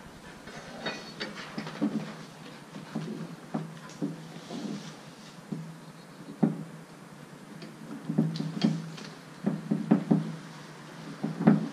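Irregular knocks and clanks of metal parts and tools while working a cylinder pin on a John Deere 310D backhoe, coming thicker and louder near the end.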